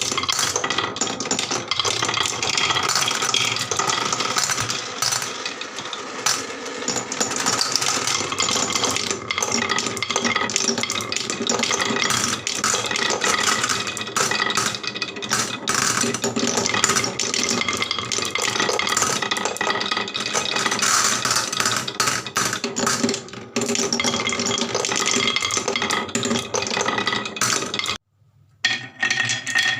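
Marbles rolling and clattering down a HABA wooden marble run: a continuous dense rattle of quick clicks as the balls knock along the tracks and slopes. It cuts out briefly near the end, then resumes.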